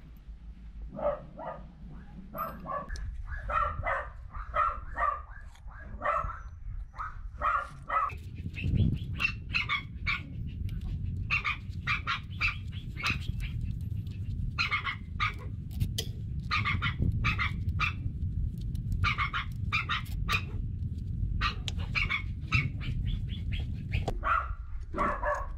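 A dog barking over and over in quick runs of short barks, over a steady low rumble.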